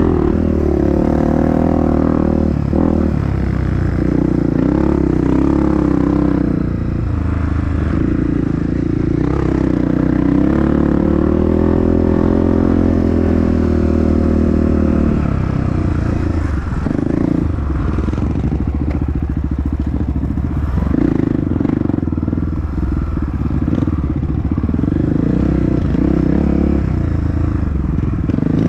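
Honda CRF dirt bike engine running hard on an off-road trail, its pitch rising and falling again and again as the revs change. Frequent knocks and rattles come from the bike over rough ground.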